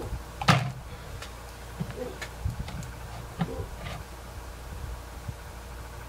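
Knocks and clicks from a wet painted canvas being gripped and tilted on a wire rack. A sharp knock about half a second in is the loudest, and smaller taps follow over the next few seconds.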